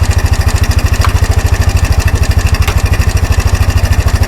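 Kawasaki 300 4x4 ATV's single-cylinder four-stroke engine idling steadily, with an even, fast putt-putt of about twelve firing pulses a second. A couple of faint clicks sound over it.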